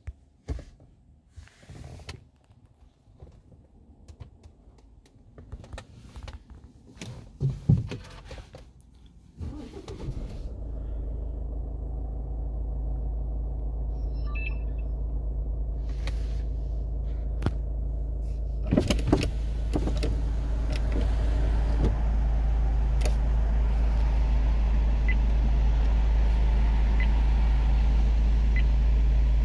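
Car engine starting about ten seconds in, then idling steadily and slowly growing louder, heard from inside the cabin. Before it, a few scattered clicks and knocks; near the end, a few faint short beeps.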